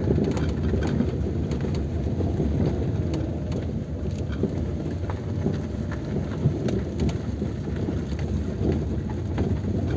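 Car driving slowly on a dirt and gravel track, heard from inside the cabin: a steady low rumble of tyres and engine, with scattered small clicks and knocks from stones under the tyres.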